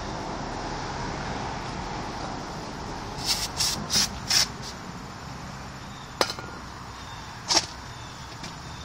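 Four short hisses of an aerosol brake-cleaner can sprayed onto a caliper bolt to clean it, about three seconds in, followed by two sharp clicks a little over a second apart.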